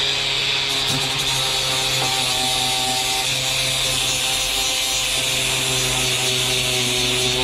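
Cordless angle grinder with a sanding disc running steadily against the plastic hull of a kayak, sanding around a split that has been patched with fibreglass to key the surface before re-glassing.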